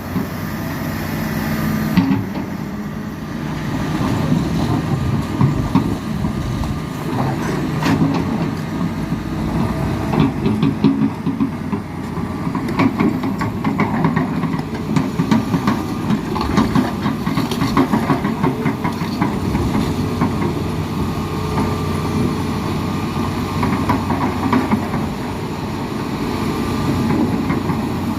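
Heavy diesel engines of loaded trucks and an excavator running steadily, with rapid clattering throughout.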